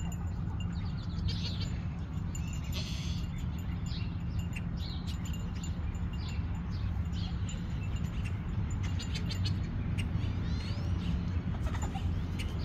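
Chickens in a run giving short, scattered calls and chirps over a steady low hum.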